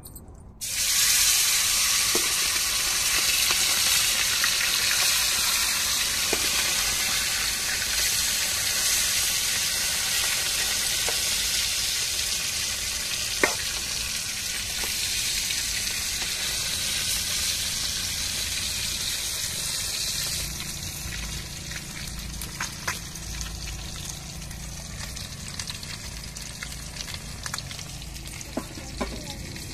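Marinated fish pieces frying in a pan of hot oil: a loud sizzle that starts suddenly about a second in as the first pieces go in, easing somewhat after about twenty seconds, with a few sharp pops of spattering oil.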